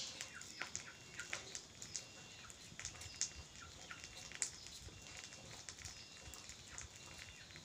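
Small knife scraping and cutting the skin off a taro corm: a run of short, irregular scrapes and clicks. Faint bird chirps in the background.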